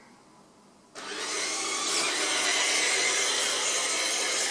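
Electric drive motors and gearing of a 1980s Robie toy robot running as it drives along. The sound starts suddenly about a second in and holds steady.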